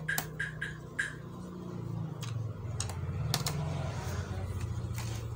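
Sharp small clicks of tools and screws on a laptop's plastic case, several in the first second and a few more later. From about one and a half seconds in, a passing vehicle's engine runs with a steady low pulsing hum underneath.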